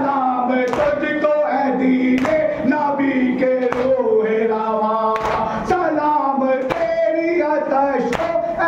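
Noha recitation: a male reciter sings a slow, drawn-out mournful melody over a microphone, with other men's voices joining in. Sharp chest-beating slaps (matam) keep a steady beat about every three-quarters of a second.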